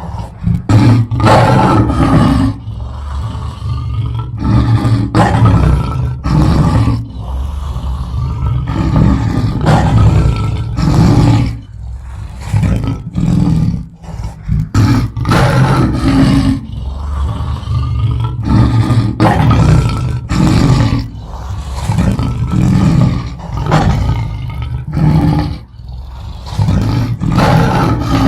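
A lion roaring over and over: a long run of deep, loud calls, each lasting a second or two, with short breaks between them.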